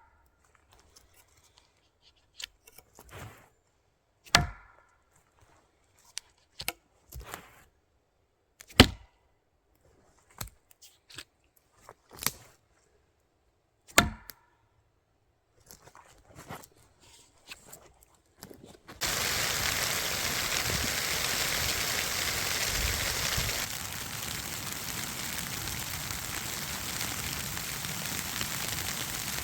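A thrown knife thudding into a wooden target: sharp single impacts, three loud ones about four to five seconds apart with fainter knocks between. About two-thirds of the way in the impacts stop and a steady hiss takes over.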